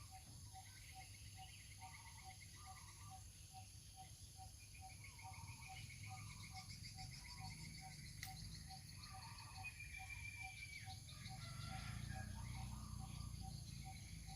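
Faint calls of insects or other small animals: steady high-pitched insect buzzing, trilling calls that come and go, and a soft note repeating about four times a second.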